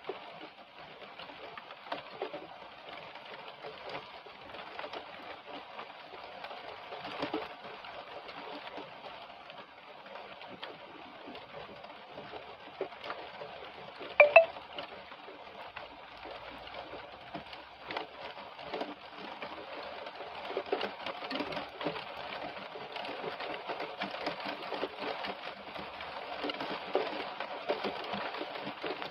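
Heavy rain falling steadily on conifer branches, a dense hiss of many small drop ticks. About halfway through, one short sharp sound stands out above the rain.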